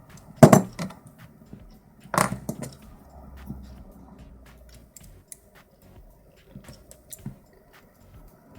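Metal clatter of a pin-tumbler lock being taken apart: two loud knocks of the lock body or parts set down hard, about half a second and two seconds in, with small scattered clicks of the pieces being handled.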